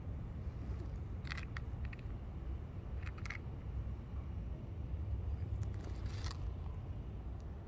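Steady low rumble of wind on the microphone, with three short dry scratchy scrapes spread through, the last one the longest.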